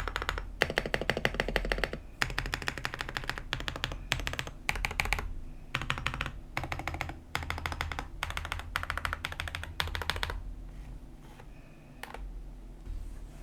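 AKKO 5098B mechanical keyboard being typed on in quick bursts of rapid key clicks. The typing thins to a few scattered keystrokes about ten seconds in.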